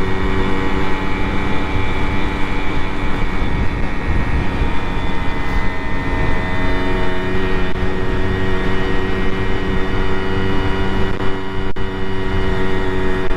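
Simson moped's single-cylinder two-stroke engine running steadily under way, with wind noise on the helmet microphone.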